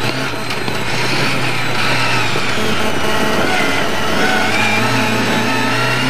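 Lada 1200 rally car's four-cylinder engine running hard at a fairly steady pitch, heard from inside the cabin.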